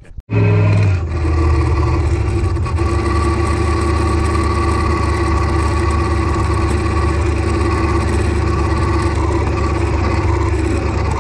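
Worn rear differential of a 2003 Dodge Ram 1500 droning with several held tones at a steady, unchanging pitch while the truck drives. It is the noise of a differential going out.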